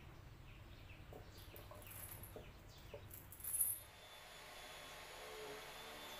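A short sharp clatter about three and a half seconds in as a MIG welder's torch and cable are handled, followed by a faint steady hum. Birds chirp faintly in the background.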